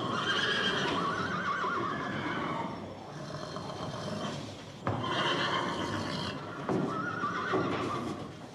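A horse whinnying three times, each call long with a wavering, quavering pitch.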